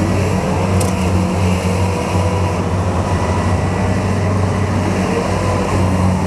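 Diesel engine of a Kubota combine harvester running steadily under load while bogged in deep, waterlogged mud, with a single sharp click about a second in.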